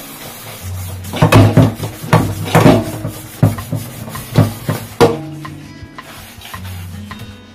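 Stainless steel pots clanking and knocking against each other and the metal sink as they are washed, a quick run of sharp clanks between about one and five seconds in, over background music.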